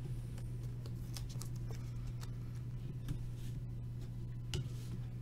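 Topps Chrome baseball cards being handled and flipped through by hand: light, scattered clicks and slides, over a steady low electrical hum.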